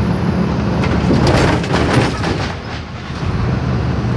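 Mercedes-Benz Axor 1933 truck on the move, heard from inside the cab: a steady low engine hum, broken about a second in by a second or so of rattling and knocking as the rig jolts on the road.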